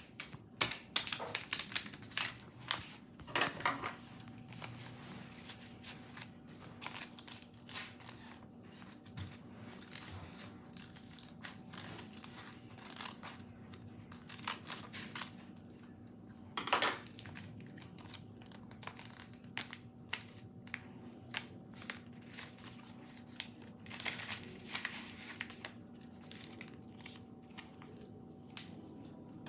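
Paper crinkling and tearing in irregular crackles and rustles as a paper blind bag is handled and opened, with louder clusters in the first few seconds, around the middle and again near the end. A faint steady hum runs underneath.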